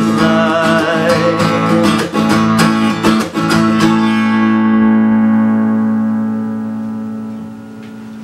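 Acoustic guitar and mandolin strumming chords together, then about four seconds in a last chord left to ring and slowly fade.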